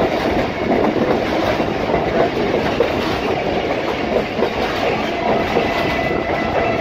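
Pakistan Railways passenger train running at speed, heard through an open coach window: a steady rumble with rapid clatter of wheels over the rails.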